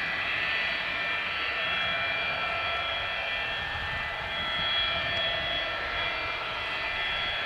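Boeing 727-200's three Pratt & Whitney JT8D turbofans running at low taxi power: a steady high whine of several tones over a low rumble, with no spool-up yet.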